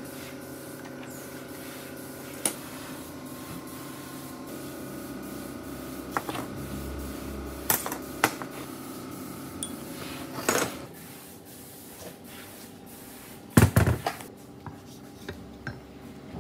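Heavy metal engine parts, a cylinder head and a crankshaft, being handled on a steel workbench: scattered clunks and knocks, the loudest a heavy thud near the end, over a steady workshop hum.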